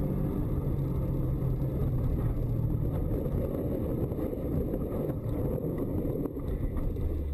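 Car engine and road noise heard from inside the cabin as the car slides out of control on a snowy road. A steady engine note fades about three seconds in, leaving a dense rumble, with a couple of faint knocks near the end as the car ploughs into deep snow.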